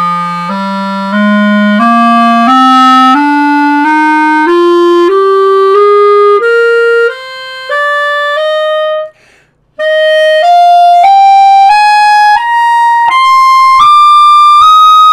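Clarinet fitted with red, brown, green and purple color rings on the barrel and bell, playing a slow rising scale from the bottom of its range about two notes a second. There is a short break for breath a little past the middle, then the scale climbs on into the upper register.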